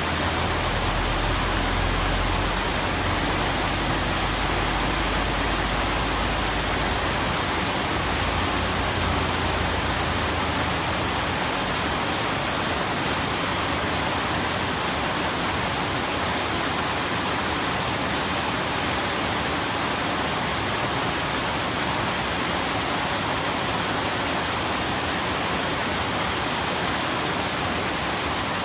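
Steady, heavy rain: a dense, even hiss. A low rumble runs underneath for about the first ten seconds, then fades away.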